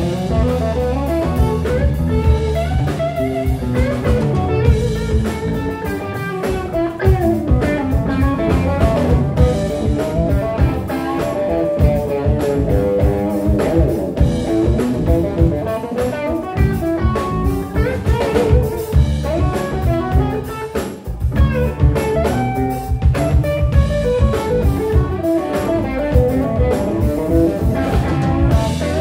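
Live blues-rock band playing: electric guitar over electric bass and a drum kit.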